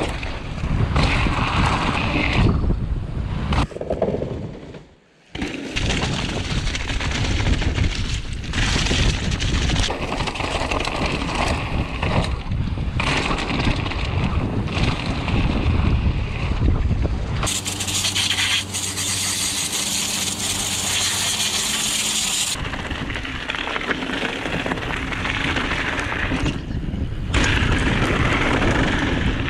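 Mountain bike riding fast down a gravel trail: tyres crunching and rattling over loose gravel, with wind buffeting the camera microphone. The noise drops away briefly about five seconds in, and a steady low hum runs under it for about five seconds past the middle.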